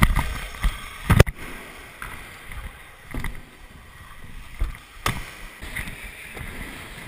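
Stunt scooter wheels rolling over wooden skatepark ramps with a steady rumble, broken by several sharp knocks of the scooter on the ramps, the loudest about a second in and another about five seconds in.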